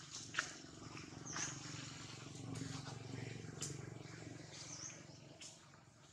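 Faint outdoor ambience around a troop of macaques: a low steady drone fades out near the end, with a couple of short high chirps and light clicks and rustles over it.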